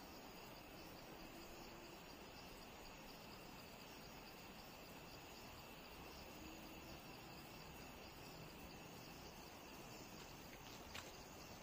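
Near silence: a faint, steady, high-pitched chirring of insects, with a couple of faint clicks near the end.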